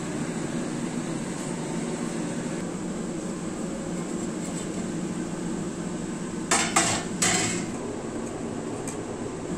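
A metal spoon clinking and clattering against a ceramic bowl three times in quick succession, about two-thirds of the way in, over a steady fan-like hum.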